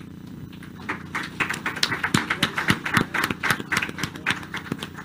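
A small group clapping: uneven applause that starts about a second in, over a low steady hum.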